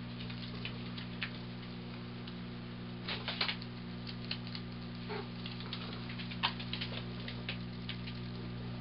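A cat's paws and claws scuffing and tapping on carpet in short scattered clicks as it darts after a laser dot, with a small cluster about three seconds in and a sharp tick a little past the middle. A steady low electrical hum runs underneath.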